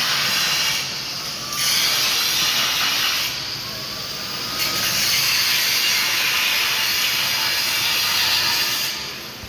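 Stick (arc) welding: the electrode's arc making a steady hiss, which twice drops quieter for a moment before coming back at full strength.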